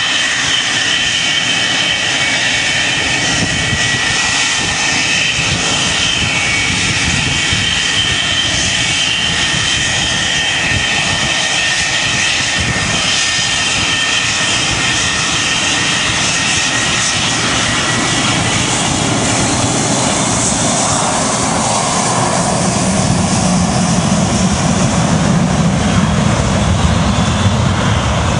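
Boeing 727's three Pratt & Whitney JT8D jet engines running as it lines up and starts its takeoff roll. A high whine dominates at first and fades after about eighteen seconds. A deep roar then builds and grows louder toward the end.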